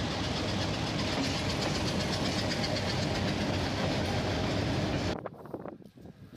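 Pakistan Railways diesel locomotive passing close by, its engine running and its wheels rolling on the rails. The sound cuts off abruptly about five seconds in, leaving only faint low background sound.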